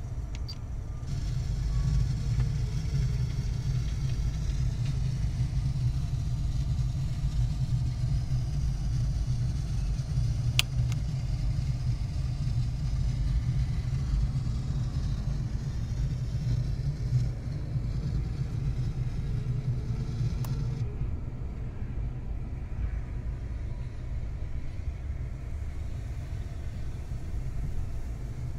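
Steady low rumble of a Skoda Yeti heard from inside the cabin, with a couple of faint clicks.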